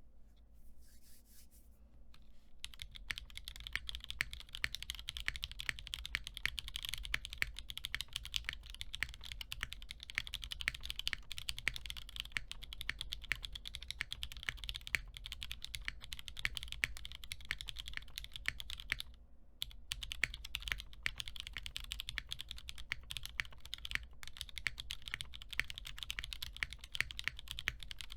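Fast, continuous typing on a 60% mechanical keyboard with stock Jwick Black linear switches, an aluminium half plate and JTK keycaps: a dense run of keystroke clacks that starts about two seconds in, with a brief pause a little past two-thirds of the way through.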